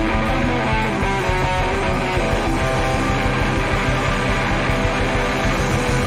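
Live band playing an instrumental passage: electric guitar line over drums and bass guitar, with a steady beat.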